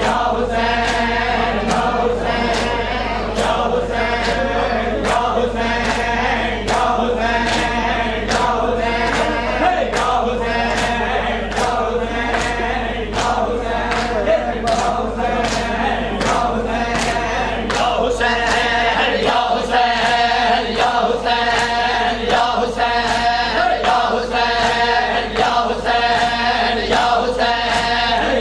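Men chanting a noha together in unison over rhythmic matam: open hands slapping bare chests in unison, a little more than once a second, keeping the beat of the chant.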